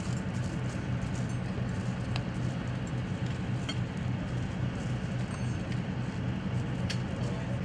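Steady low rumble of an engine running, even throughout, with a few faint clicks.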